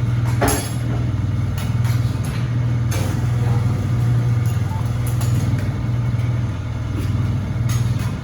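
Steady, slightly pulsing low engine hum, with a few sharp clicks and knocks over it.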